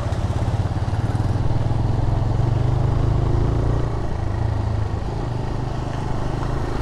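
A TVS Raider 125 motorcycle's single-cylinder engine running while riding, with a rush of wind and road noise; the engine note swells a little about halfway through, then eases.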